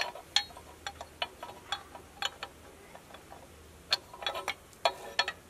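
Sharp metallic clicks and clinks at an irregular pace, with a quick run of them about four seconds in: metal parts being knocked together by hand as a turbo oil drain tube is pressed into place in a diesel engine bay.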